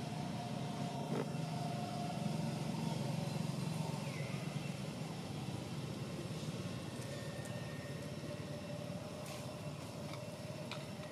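Steady low rumble of a motor vehicle's engine running, a little louder a few seconds in, with faint thin steady tones above it and a few faint clicks near the end.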